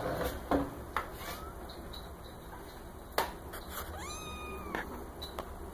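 A kitten mewing: one high, level call of just under a second about four seconds in, after a short rising squeak near the first second, with a few soft clicks and rustles between.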